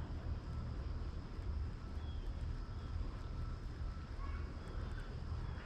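Outdoor ambience by the water: a low, uneven rumble with a few faint high chirps.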